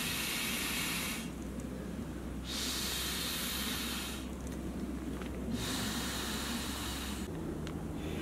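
Long breaths blown by mouth into the valve of a Therm-a-Rest Venture inflatable sleeping mat: three airy blows of a bit over a second each, with short pauses for breath between.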